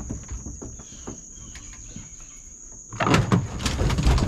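Insects droning with a steady high-pitched tone over a few faint knocks; about three seconds in, a loud burst of clattering and rustling starts and keeps going.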